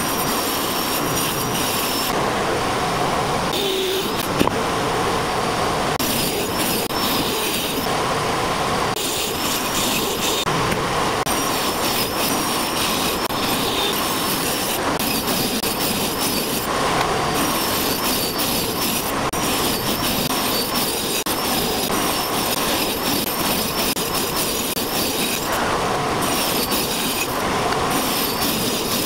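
Angle grinder mounted under a table as a circular saw, running with a steady high whine while its blade cuts sheet stock fed along a guide. The tone shifts every few seconds as the blade goes into and out of each cut.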